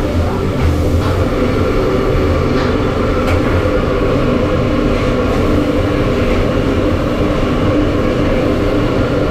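Steady low drone of a passenger ship's machinery, with several steady hums, over the sizzle of oil frying in a large steel wok. A few light clinks of a metal spatula on the wok come through.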